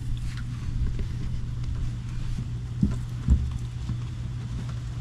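Handling noises from working the truck's antenna by hand: a few faint clicks and two light knocks close together near the middle, over a steady low hum.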